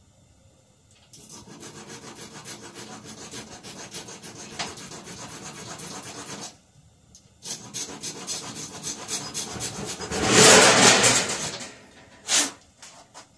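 A small hand file rasping in quick back-and-forth strokes across the wafer tumblers of a blank car door lock cylinder, in two runs with a short pause between them. The protruding wafers are being filed down so that the original key will turn the cylinder. Near the end comes a louder burst of noise lasting about a second and a half, then a short one.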